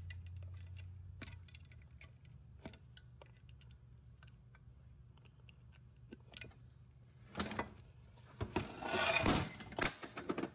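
Light metallic clicks and scrapes of parts being handled inside a Subaru 4EAT automatic transmission case as a piston is worked out. A louder burst of clattering and rattling comes about three-quarters of the way in. A faint low hum dies away within the first two seconds.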